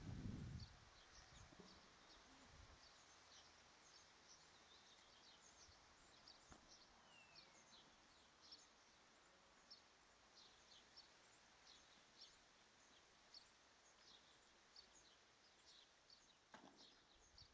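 Near silence: faint outdoor background with many short, high chirps throughout, one brief falling whistle about seven seconds in, and a single soft knock about a second before the end.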